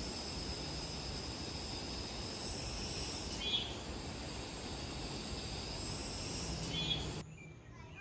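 Steady high-pitched chorus of insects in a summer forest, with two short chirps partway through. It cuts off suddenly about seven seconds in.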